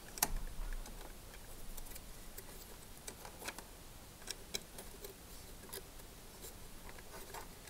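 Faint, irregular small clicks and ticks of a plastic wiring connector and leads being handled and pushed onto the terminals of a dishwasher's pump-and-heating-element assembly.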